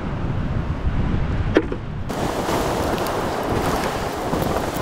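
Wind rumbling on the microphone over the wash of surf, with one sharp click about one and a half seconds in. About two seconds in the sound turns abruptly to a brighter hissing wash of surf, with a few faint ticks.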